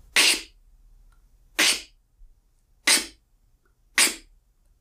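Four beatboxed inward K snares, each a short, sharp sucked-in hiss, about a second and a quarter apart. Each is cut off at once by closing the lips, so only the first snap sounds and the trailing inhaled air is stopped. This is the cutting-off-the-excess-air step toward a rimshot snare.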